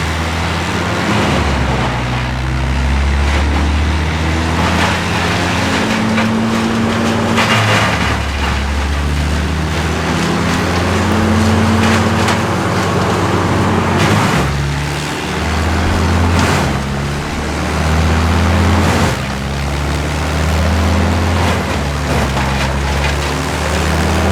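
A large engine of heavy work machinery running steadily, its speed stepping up and down every few seconds, with a few short sharp knocks.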